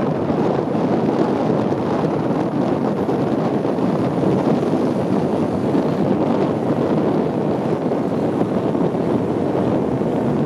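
Hong Kong double-decker electric tram running along its street tracks, heard from the upper deck as a steady, even noise of the moving tram mixed with wind rushing over the microphone.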